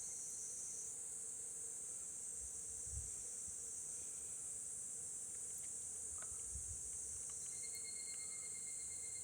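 Crickets and other night insects chirring in a steady, high-pitched chorus. A second, lower insect tone joins in near the end.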